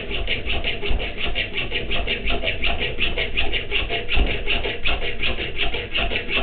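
Hacksaw cutting metal tubing clamped in a vise, rasping in a steady, rapid back-and-forth rhythm of strokes.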